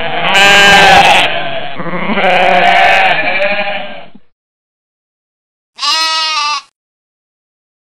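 Goats bleating: two long, wavering bleats in the first four seconds, then a shorter call about six seconds in.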